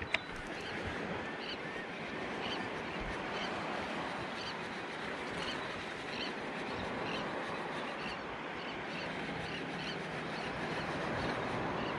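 Steady outdoor noise of wind and water, with a faint high chirp repeating about every half second and a single sharp click just after the start.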